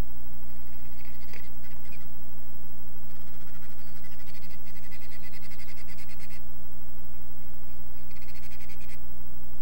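Owls in a nest box giving fast rattling, trilling calls in three bursts, the middle one the longest at about three seconds, over a steady low hum.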